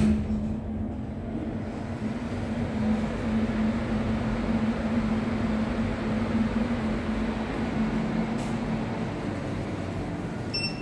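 Steady mechanical hum with a constant low drone and a soft rush of noise as a Schindler 5500 machine-room-less traction lift arrives and its doors slide open. A short high beep sounds near the end.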